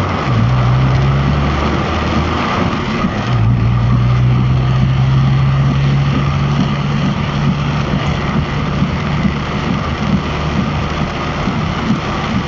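Inside a car in heavy rain: rain drumming on the roof and windscreen over the steady low hum of the car's running engine, which drops out for a moment about two seconds in.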